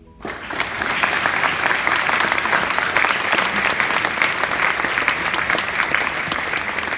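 Audience applauding, breaking out suddenly at the end of a speech and holding steady.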